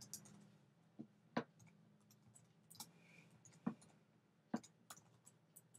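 Faint, irregular clicks of keys being typed on a computer keyboard, with a few sharper taps among them, over a faint low hum.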